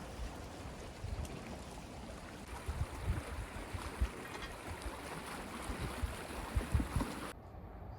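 Wind gusting across the microphone in low, uneven rumbles over a steady wash of sea noise at the shore; it cuts off suddenly near the end.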